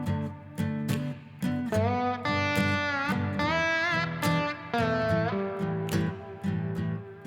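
Instrumental blues music: a slide guitar playing bending notes over a steady plucked bass line.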